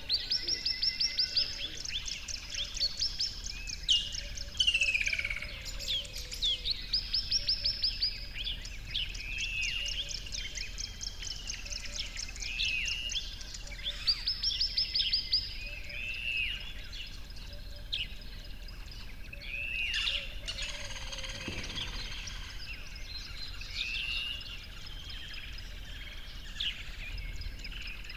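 Several songbirds singing together: a rapid high trill lasting about a second and a half comes back several times, among many shorter down-slurred chirps.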